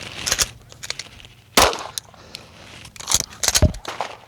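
Gunshots at a pistol range: one sharp shot about one and a half seconds in, then two or three more in quick succession a little past three seconds, with small clicks in between.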